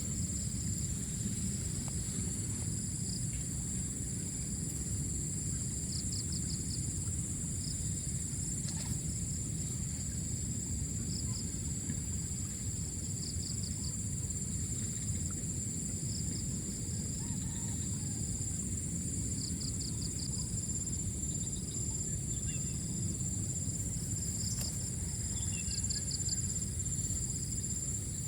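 Outdoor insect chorus: a steady high-pitched drone of insects, with short pulsed chirps breaking in every few seconds, over a constant low rumble.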